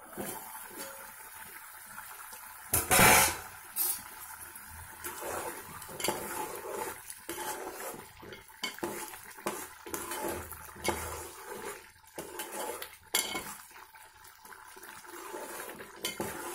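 Steel lid taken off a cooking pot, with a loud metallic clatter about three seconds in and a smaller one just after. Then a metal spoon stirs thick curry gravy, clinking and scraping against the steel pot many times.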